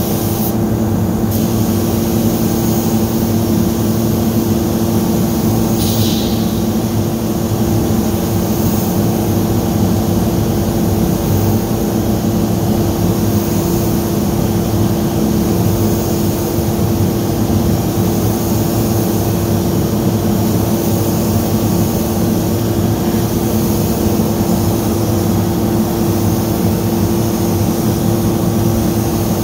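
Steady loud mechanical drone with a constant low hum, from the spray-finishing equipment and booth ventilation while a spray gun coats wooden cabinets. A short hiss comes about six seconds in.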